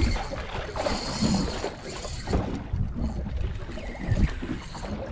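Wind buffeting the microphone and small waves slapping against a boat's hull, with irregular low thumps and a brief hissing gust about a second in.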